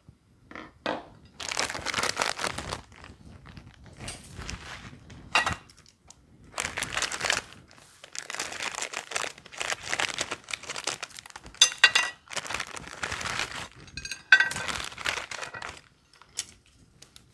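Plastic instant-noodle packet and seasoning sachets crinkling and being torn open, in irregular bursts with a few sharp clicks.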